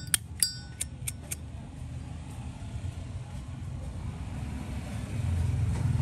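Chrome 1988 Zippo windproof lighter's lid snapping open and shut several times in the first second and a half, each a sharp metallic clink with a brief ring, the crisp action of a strong cam. After that only a low steady background rumble remains, growing louder near the end.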